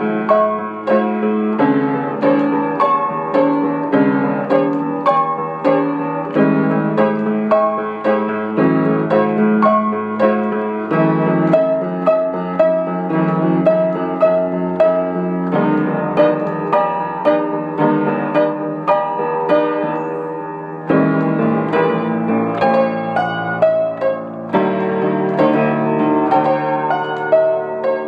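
Old upright acoustic piano played solo: a flowing melody over steady chords. The notes die away briefly about twenty seconds in before the playing comes back strongly.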